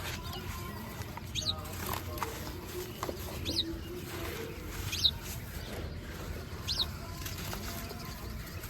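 A few sharp crumbling clicks of wet concrete breaking apart, with a bird giving four short, high, falling chirps spaced about two seconds apart.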